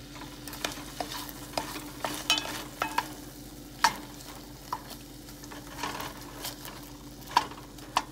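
Chopped bell peppers sizzling softly in an enamelled pot while a wooden spoon stirs them, knocking and scraping against the pot about once a second. The sharpest knocks come about four seconds in and again near the end.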